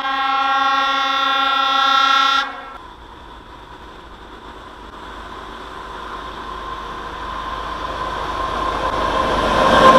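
A train horn sounds one long blast of about two and a half seconds and cuts off sharply. Then the rumble of an approaching train grows steadily louder.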